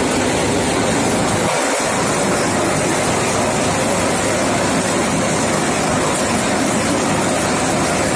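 Four-fan paddy thresher running steadily under load: a loud, even rush of its fan and threshing drum, with chopped straw blasting out of the outlet.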